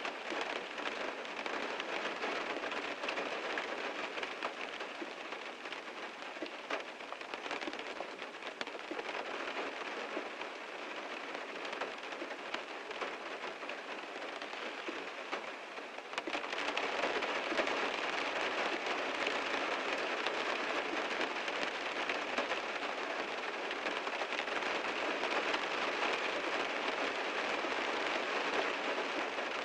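Heavy rain falling on a car, a dense, steady patter of drops. It eases slightly for a while, then turns heavier again about sixteen seconds in.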